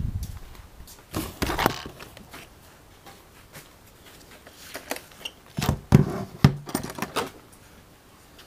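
A low rumble fades out in the first second, then scattered sharp clicks and knocks of a radio-controlled car being handled, a few about a second in and a louder cluster a little past five seconds.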